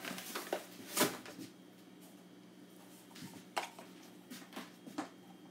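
A few faint knocks and clicks of kitchen items being handled, the loudest about a second in, over a low steady hum.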